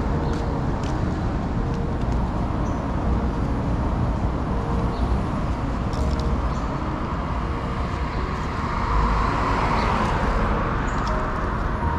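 Steady road traffic noise with a low rumble, swelling about nine seconds in as a vehicle passes.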